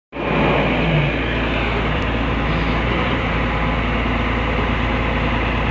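Diesel engine of a Volvo EC145B crawler excavator running steadily at a constant speed.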